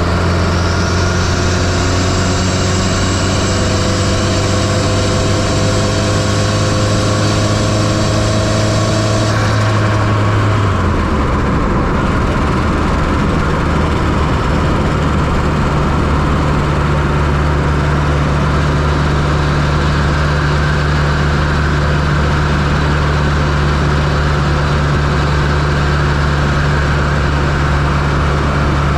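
Fiat Coupe 2.0 16V turbo engine idling steadily, heard up close in the engine bay. About ten seconds in, a higher whine with slowly rising tones stops and the engine note drops slightly lower, then holds steady.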